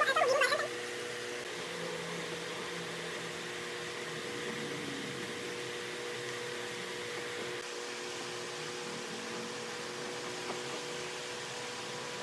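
Steady machine hum with a few constant tones over a light hiss, like a running motor or fan.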